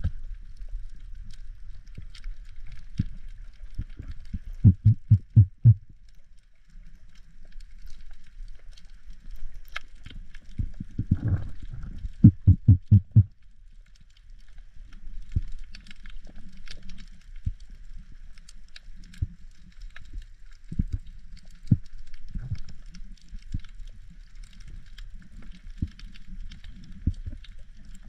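Underwater sound in shallow surf, heard through a camera's waterproof housing: a muffled low rush of water with faint crackling and scattered clicks, and twice a quick run of loud, low thumps.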